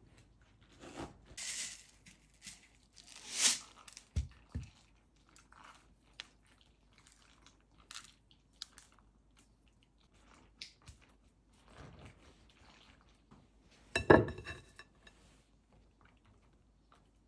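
Handling of a plastic kimchi container. In the first few seconds a spatula scrapes and wet vegetables crunch, followed by a couple of dull knocks. Then come scattered small plastic clicks, and a sharp, loud clack about 14 seconds in as the lid is pressed on.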